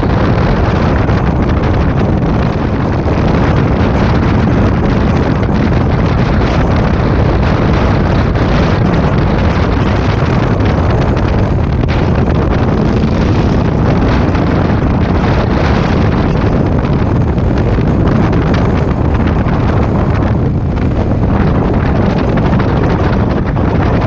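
Heavy wind noise buffeting the microphone of a moving Honda Africa Twin CRF1000L DCT motorcycle, with the bike's parallel-twin engine running underneath.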